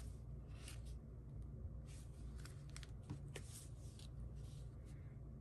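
Soft paper rustling and a few light ticks as a handmade paper greeting card is handled and laid down in its clear plastic sleeve on a cutting mat, over a low steady hum.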